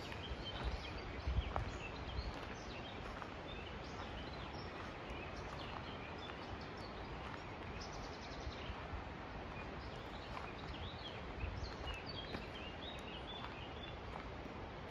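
Mountain outdoor ambience: small birds chirping and twittering over a steady background hiss, with a few soft low bumps about a second in and again near the end.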